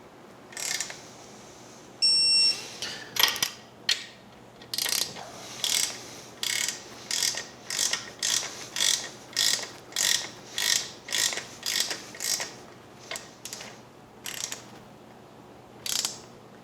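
Torque wrench set to 40 foot-pounds gives one short electronic beep about two seconds in, the signal that the bolt has reached its set torque. A long run of short ratchet strokes follows, roughly one every 0.6 s, as the wrench is worked on the next bolt, with a few sparser strokes near the end.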